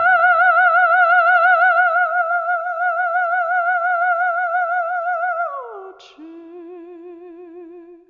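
Music: one long, loud held note with a fast, even vibrato, in an operatic or theremin-like voice. A little over five seconds in it slides down to a lower note, which holds more quietly and fades out.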